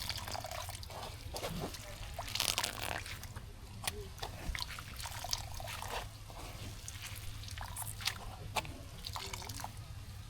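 Liquid trickling and dripping in short spells, with many scattered small drips and clicks.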